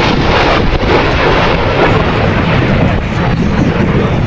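Dassault Rafale C fighter jet's twin Snecma M88 turbofans at high power during a display pass, a loud jet roar that eases slightly about three seconds in.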